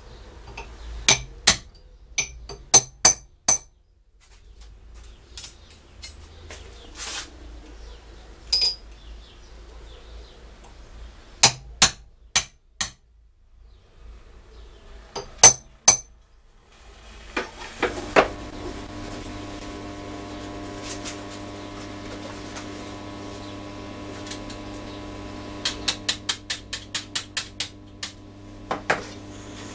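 Hand hammer striking steel on a steel block with a bright metallic ring, in irregular groups of two to four blows with pauses between. Near the middle this gives way to a steady electrical hum, with a quick run of light metallic taps near the end.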